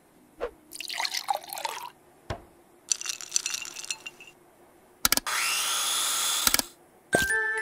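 Cartoon kitchen sound effects: a couple of clicks and two short stretches of wet, liquid-like sound, then a toy blender switched on and whirring steadily for about a second and a half, its pitch rising as it spins up. Music starts right at the end.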